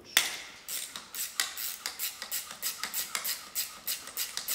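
A ratcheting tool or mechanism clicking in quick regular strokes, about three to four a second, after a sharper first click.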